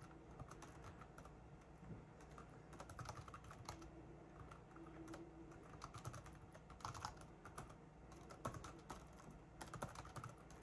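Typing on an IBM ThinkPad X31 laptop keyboard: a faint, irregular run of quick key clicks, with a few louder bursts of keystrokes.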